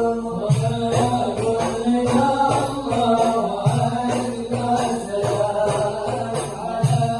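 A group of voices chanting a devotional sholawat song in unison, accompanied by frame-drum beats and jingling percussion.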